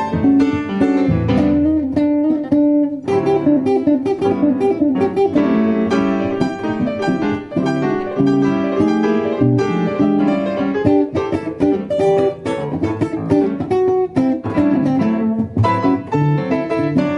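Guitar playing blues, an instrumental passage of many quickly plucked notes over a running bass line.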